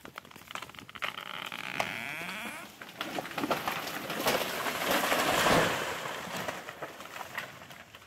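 A large felled tree going over: the hinge wood creaks and groans for a couple of seconds, then the trunk and crown crash down through the branches, loudest about five seconds in. Scattered snaps of breaking branches follow as it settles.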